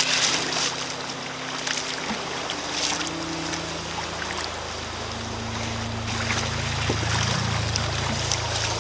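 Sea water splashing and sloshing around a sea kayak on choppy water, with wind noise on the microphone.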